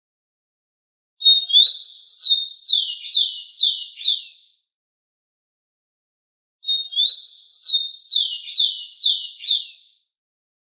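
Rufous-collared sparrow (tico-tico) singing the same song twice. Each song opens with a short held whistle that slides upward, then runs into about five high whistles, each falling in pitch.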